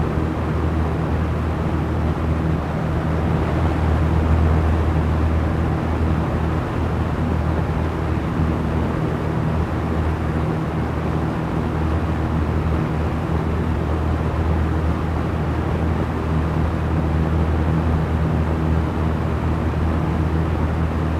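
Small electric fan running steadily: a low, even motor hum under a constant rush of air.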